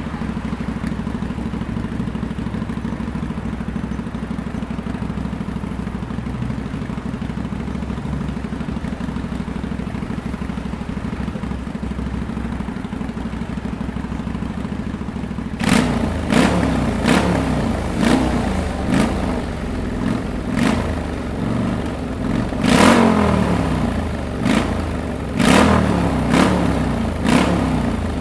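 Motorcycle engine idling steadily, then, from about halfway, revved again and again in short throttle blips, its pitch rising and falling with each rev.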